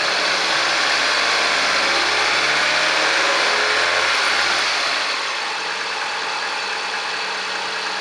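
Opel Zafira's 1.6 16-valve Ecotec petrol engine given a little throttle, revving up for about five seconds and then settling back to idle. No knock comes through: the rattling manifold cover has just been refitted with sealant and rubber pads.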